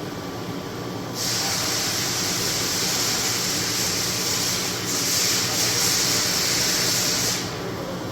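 Steady hiss from the Swiss lathe and bar feeder, starting about a second in, dipping briefly midway and cutting off sharply near the end, over the machine's steady running hum.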